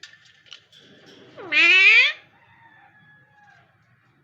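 A single loud meow lasting about half a second, its pitch rising sharply, with a few faint clicks before it.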